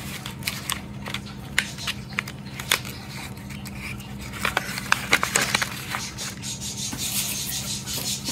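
Small stones and their packaging handled by hand: scattered light clicks and taps, busier around the middle, with a rustling, rubbing stretch near the end.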